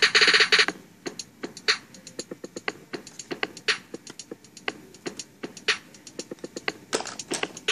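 Pencil scratching on drawing paper right beside the microphone: a short burst of rapid scribbling at the start and again near the end, with scattered taps and clicks between.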